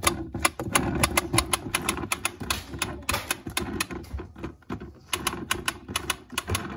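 Plastic steering wheel of a toy ice cream truck spun round by hand, giving a rapid, uneven run of clicks that stops near the end.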